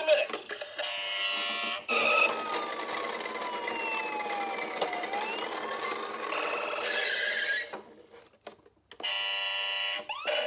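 Electronic siren sounds from toy ambulances. A fast warbling alarm tone comes first, then a siren wail that slides down in pitch and back up over a steady noise. The sound drops out briefly near the end before the warbling tone returns.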